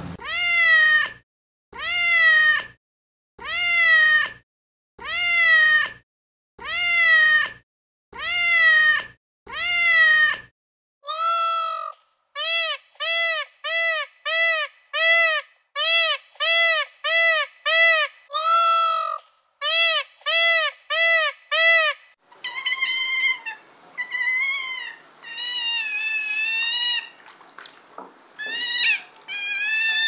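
Cat meowing over and over. First come about seven long meows, each falling in pitch, at an even pace. Then comes a quick run of short, higher mews, then a rougher series of drawn-out calls.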